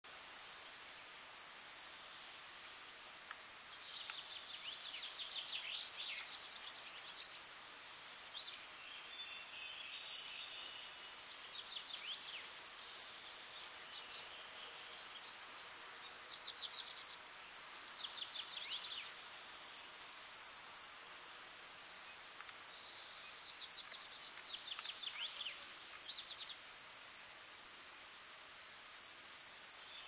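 A steady high-pitched insect trill, with a songbird singing short phrases of quick high notes every few seconds.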